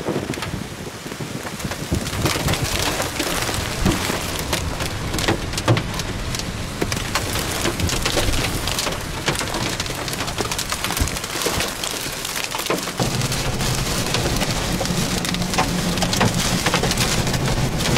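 Heavy rain and hail pelting a vehicle in a tornado's storm: a dense patter across the roof and windshield, with many sharp, irregular hits. A low rumble grows louder about thirteen seconds in.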